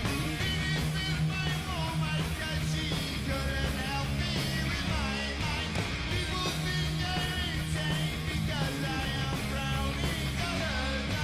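Heavy metal band playing: a male singer over distorted electric guitar, bass and drums.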